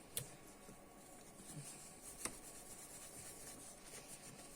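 Faint rubbing as a laptop's copper CPU heatsink is wiped clean, with two light clicks, one just after the start and one about two seconds in.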